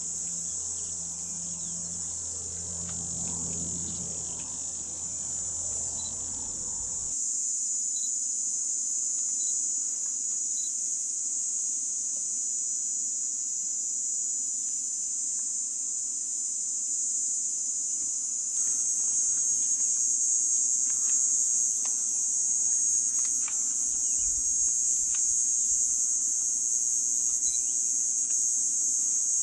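Continuous high-pitched shrilling of an insect chorus in dry bush. It gets louder in steps about seven seconds in and again past the middle. A low steady hum underlies it for the first seven seconds, then stops abruptly.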